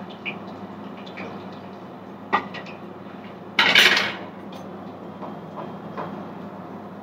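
Cookware sounds at a gas stove where potatoes are frying in a kadai: a few sharp metal clicks, then a loud clatter lasting about half a second a little past halfway, then light taps of a metal spatula stirring in the pan, over a steady hiss.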